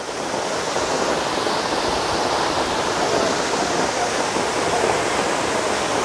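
Monsoon waterfall pouring in a steady, dense rush of water. It fades in over about the first second.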